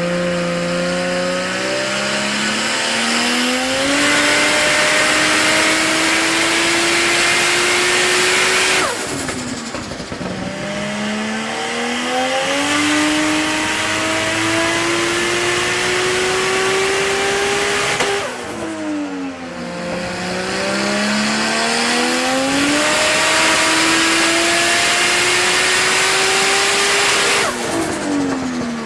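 Turbocharged Nissan RB30 straight-six, fitted with a Garrett G42 turbo, making full-throttle dyno runs. Three times the engine note climbs steadily for about eight seconds, with a loud rushing hiss joining partway through each run, then drops away sharply when the throttle is closed.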